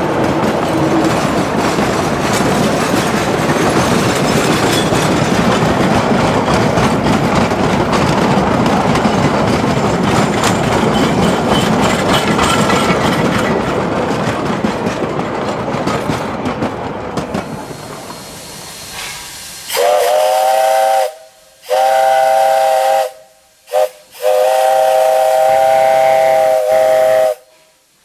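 Freight cars rolling past close by, wheels clattering on the rails, fading away after about 17 seconds. Then a steam locomotive whistle blows long, long, short, long: the grade-crossing signal.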